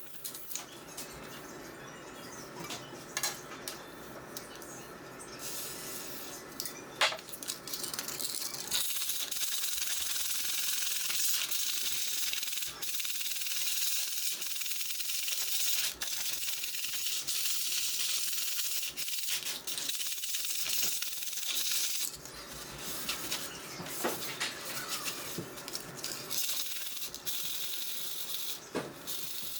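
Light metallic clinks and taps at first, then from about nine seconds in a steady scrubbing rasp, with a brief let-up a little past twenty seconds: the steel blade of a Disston D-23 handsaw being sanded down in its restoration.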